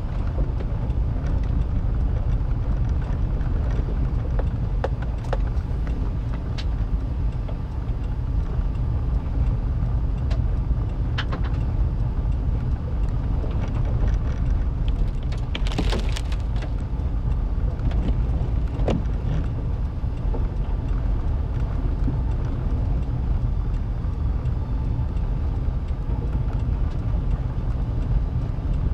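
Car driving on a gravel and dirt road, heard from inside the cabin: a steady low rumble of engine and tyres, with scattered sharp clicks, several close together about halfway through.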